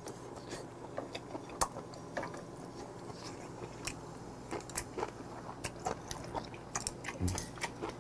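Close-miked chewing: a scatter of small wet clicks and crunches as a mouthful of food is bitten and chewed. About seven seconds in, a short low "mm" hum comes from the eater.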